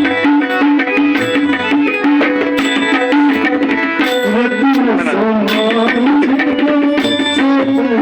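Tabla playing a rhythmic accompaniment pattern over a steady, held drone, in bhajan music. Near the middle a wavering tone glides up and down.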